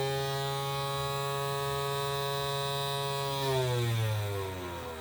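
Homemade battery-powered siren sounding the attack signal: one steady wailing tone held at its top pitch, then winding down in pitch about three and a half seconds in, part of the repeated rise-and-fall of the attack wail.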